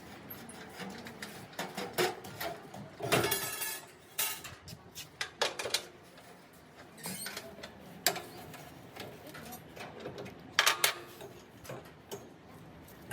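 Workshop handwork on metal: scattered clinks and knocks of tools against metal parts, irregular and a second or more apart, one with a brief metallic ring about three seconds in.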